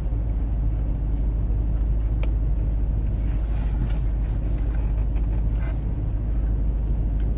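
Steady low rumble of a car's idling engine heard inside the cabin, with faint chewing sounds over it.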